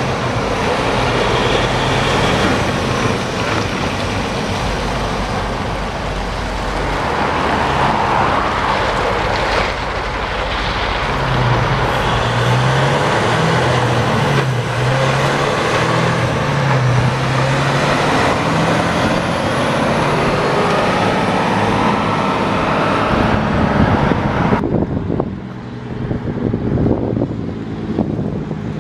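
Heavy diesel semi dump trucks pulling away close by, engines running loud with the pitch climbing and dropping in steps as they shift up through the gears. Near the end the sound cuts to a duller, more distant truck approaching.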